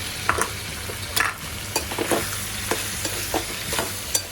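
A spoon scraping and knocking against a pan, in irregular clicks, as a potato and tomato bhaji is stirred. Under it runs a steady sizzle of frying.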